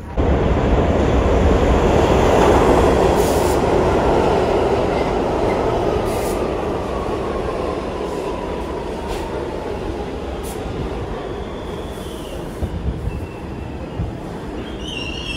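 New York City subway train rumbling along the station track as it slows, with a whine that falls steadily in pitch as the motors wind down. High-pitched wheel squeal starts near the end.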